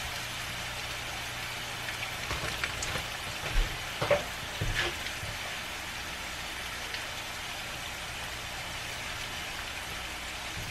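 Oil sizzling steadily on a griddle as tortilla tacos filled with potato and cheese fry. A few light knocks and pops come between about two and five seconds in.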